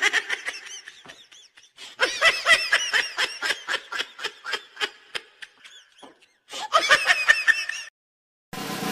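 High-pitched giggling laughter in quick repeated ha-ha pulses, in two runs: a long one starting about two seconds in and a shorter one near the end.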